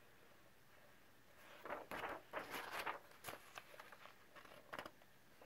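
A page of a paperback coloring book being turned: a papery rustle from about one and a half to three seconds in, then a few faint flicks as the sheet settles.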